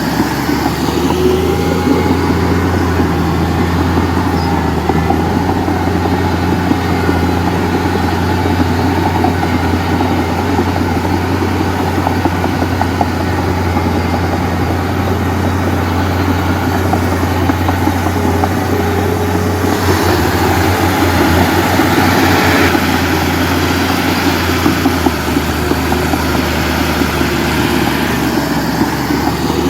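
Komatsu D31P bulldozer's diesel engine running steadily under work, its pitch rising and falling now and then, a little louder and harsher around twenty seconds in.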